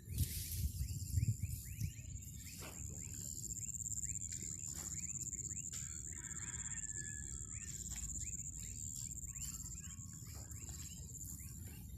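Many small birds chirping in quick, repeated short peeps over a steady high-pitched whine, with a few knocks in the first couple of seconds.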